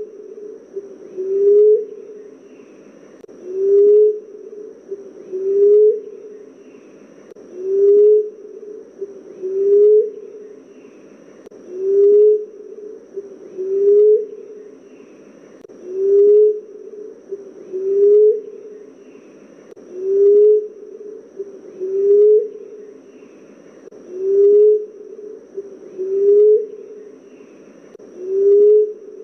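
Emerald dove cooing: a short, low coo that rises slightly in pitch, repeated about every two seconds. A faint steady high tone runs behind it.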